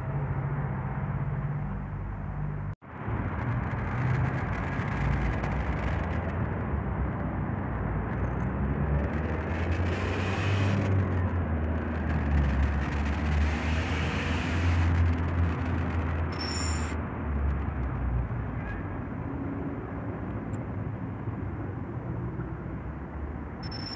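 Outdoor road traffic: a steady low rumble with vehicles swelling past about ten and fourteen seconds in. The sound cuts out for an instant about three seconds in.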